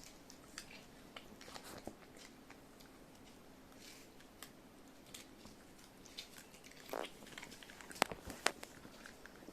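Pekingese–Maltese mix dog crunching and chewing green pepper, with scattered crisp bites. Two sharp cracks a little after eight seconds in are the loudest.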